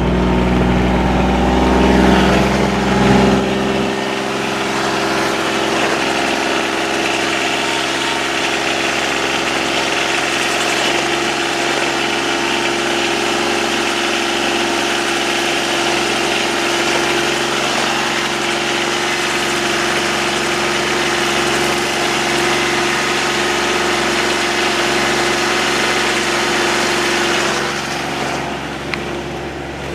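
John Deere Gator utility vehicle's engine running at a steady pitch while it drives in low-range gear through deep snow, easing off near the end.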